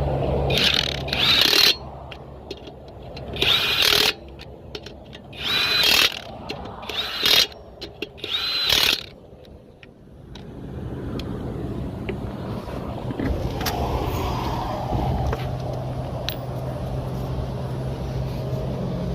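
Impact wrench running lug nuts in five short bursts over the first nine seconds, its motor whine rising and falling with each burst. Then a steady low vehicle engine hum.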